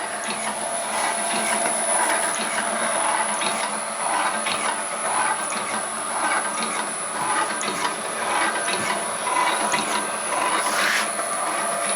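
A homemade geared can crusher and wire cutter machine running steadily, its gear train clattering, with irregular clicks and ticks over a constant whine.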